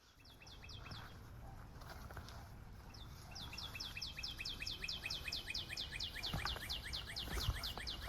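A bird singing a fast run of short, falling notes, about six a second. A brief run comes at the start and a longer one begins about three seconds in, over a low rumble.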